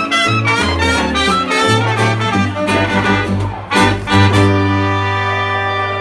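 Traditional New Orleans jazz band playing the closing bars of a tune live: trumpet, trombone, clarinet, saxophone, sousaphone bass and guitar over a washboard. After a short break with a sharp hit, the band holds a long final chord to end the song.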